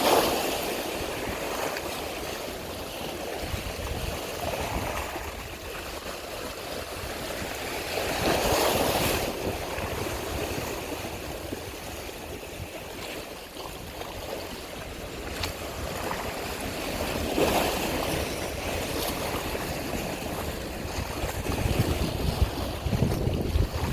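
Sea water washing and splashing in slow swells every several seconds, with wind buffeting the microphone.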